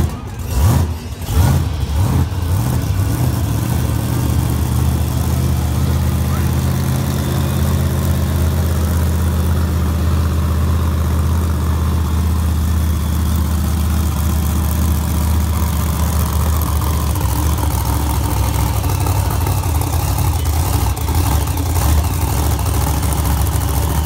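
Grave Digger monster truck's supercharged V8 running at low, steady revs as the truck creeps forward, with a few louder surges in the first two seconds.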